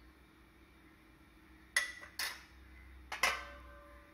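Stainless-steel spoon and lid clinking against a clay cooking pot as the curry pot is covered: three sharp metallic clinks, and the last one rings on briefly.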